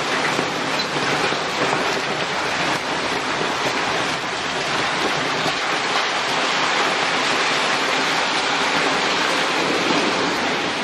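Heavy downpour of rain mixed with small hail striking the street and parking lot, a loud, steady hiss.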